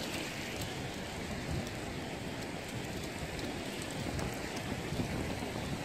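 Surf washing onto a sandy beach as a steady hiss, with some wind gusting on the microphone.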